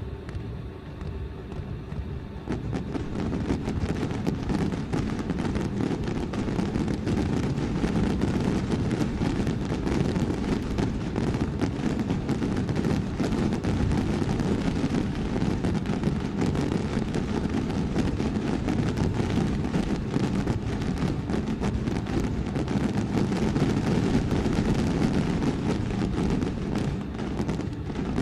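Fireworks going off in a dense barrage: a steady low rumble thick with crackles, growing louder about two and a half seconds in.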